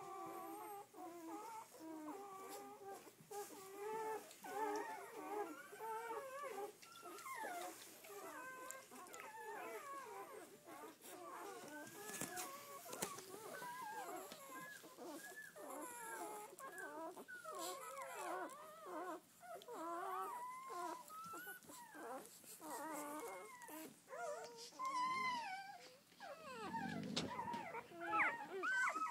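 A litter of newborn Doberman pinscher puppies squeaking and whimpering, with many short, high cries overlapping one another without pause. The cries grow louder near the end.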